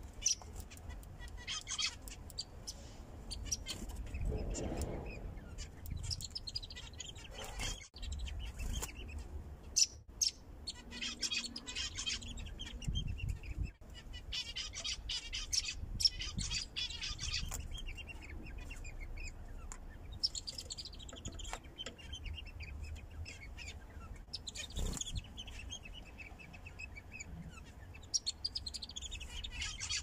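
Zebra finches chirping and calling in quick runs of short high notes, with a few falling calls, over a low steady background hum.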